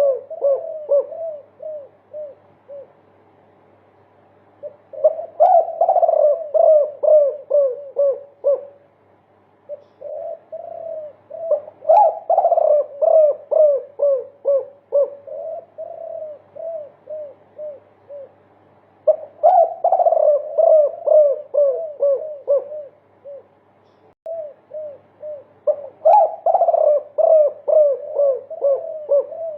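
Spotted dove (derkuku) of the multi-kuk type cooing in repeated bouts of many quick 'kuk' notes, several notes a second, each bout lasting a few seconds with short pauses between.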